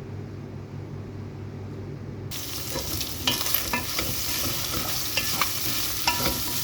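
A low hum for about two seconds, then the sound cuts abruptly to food sizzling in a hot pan, with a spatula clicking and scraping against the pan as it is stirred.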